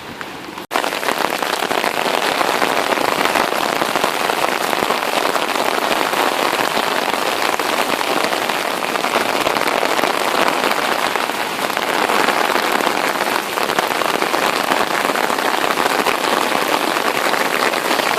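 Rain falling and hitting surfaces close to the microphone: a loud, dense, steady crackle of drops. It starts after a brief dropout just under a second in.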